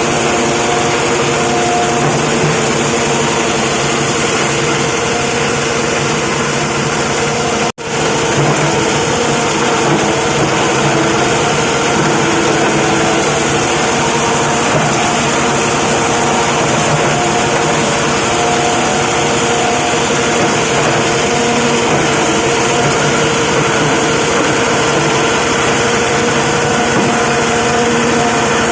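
Plastic crusher machine running steadily, a loud, even mechanical noise with a steady hum. It briefly cuts out about eight seconds in.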